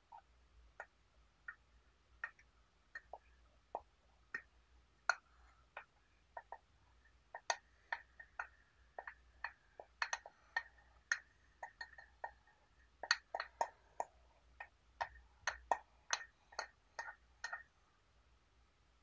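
A spatula clicking and scraping against a glass teapot as wet spent black tea leaves are scooped out onto a metal tray: a string of light, irregular clicks, thicker in the second half, that stops shortly before the end.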